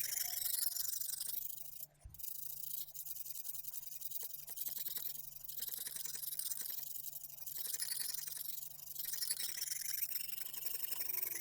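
Lansky 70-grit extra-coarse sharpening stone stroked back and forth along a kitchen knife's edge on a guided-rod sharpening system, raising a burr: a steady rasping scrape in repeated strokes, with a brief pause about two seconds in.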